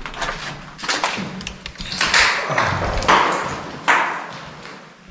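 Footsteps scuffing and crunching over a debris-strewn floor: four or five sharp steps about a second apart, each fading quickly.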